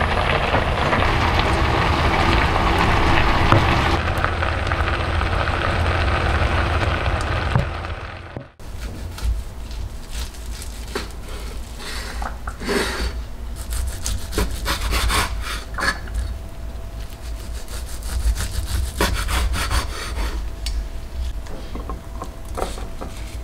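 Soy-glazed lotus root slices bubbling hard in a stainless steel frying pan. About eight seconds in this cuts off, and a crinkle-cut knife saws through a rolled omelette on a wooden cutting board, with light knocks as food goes into glass containers.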